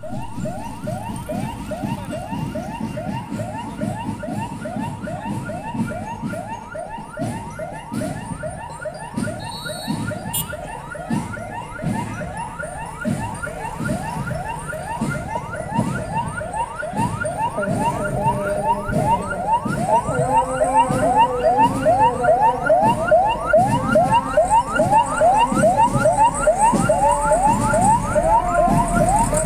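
A vehicle siren wailing in a fast yelp, its pitch rising sharply about three times a second. It grows louder over the second half as the vehicle approaches.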